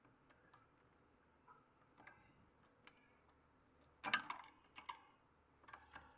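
Small clicks and taps of a bobbin case being fitted back into the shuttle of an Usha sewing machine: faint scattered ticks at first, then a cluster of louder clicks about four seconds in and a few more near the end.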